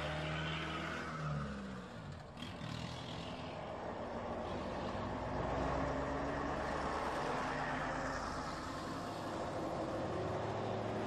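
A convoy of buses and coaches driving past close by, one after another: engine drone and tyre noise, with an engine rising in pitch about a second in as a vehicle pulls away.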